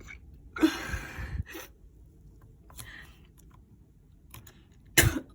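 Thick, slightly wet slime dough being squeezed and pulled in the hands, making irregular sticky crackles and clicks, with a sharp cluster of them near the end.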